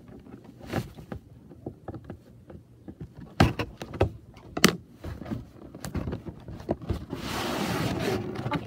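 Cardboard toy box and its packaging being handled: scattered knocks and scrapes, then a steady rustle of packaging for about a second and a half, about seven seconds in.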